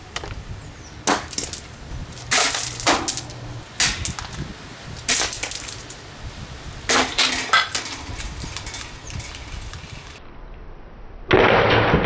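An Impress plastic table fan being smashed: a series of sharp cracking and breaking impacts, about six or seven over eight seconds, some in quick pairs. Near the end a louder, different sound starts.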